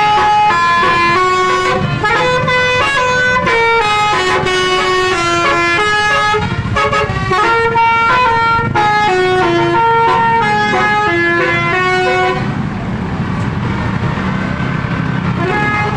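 Indonesian bus telolet horn, a multi-tone musical air horn, playing a quick tune of stepping notes. It stops about twelve seconds in and starts again near the end, over the low running of the engine.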